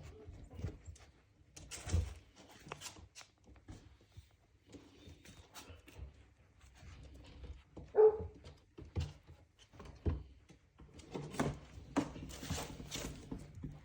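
Dalmatian puppies playing: a run of scuffles, knocks and thumps of paws and bodies, busier in the last few seconds, with one short, loud pitched cry about eight seconds in.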